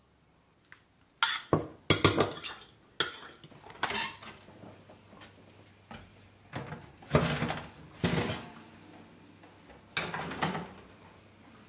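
Irregular knocks and clatter of metal kitchenware, each with a short ringing tail. A metal baking tray is drawn out of the oven and set down with a clatter on the gas stove's grates.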